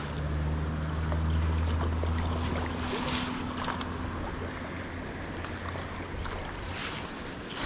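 Shallow river current rushing and splashing around a wader's legs, with louder splashes from steps about three seconds in and again near the end. A low steady machine hum runs underneath, strongest in the first three seconds and gone by about six.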